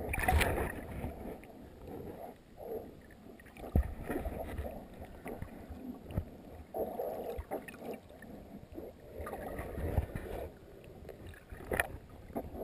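Water sloshing and gurgling around a camera at the sea surface, muffled, with a few irregular knocks from the housing being handled.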